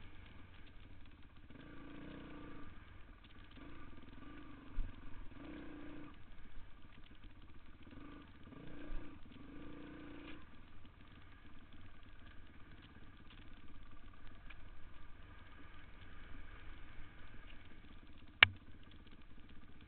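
Dirt bike engine running on the trail, swelling and dropping with the throttle in repeated bursts over the first half, then running more evenly. A single sharp knock near the end.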